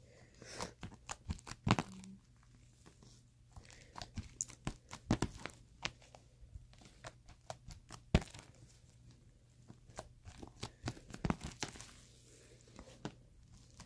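Fluffy shaving-foam slime being kneaded and stretched by hand, giving irregular bursts of sticky clicks, crackles and small pops separated by short pauses.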